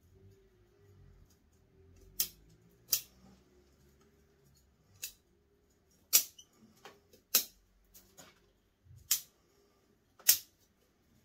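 Bonsai scissors snipping shoots off a white spruce, about nine sharp snips at irregular intervals over a soft rustle of handled branches.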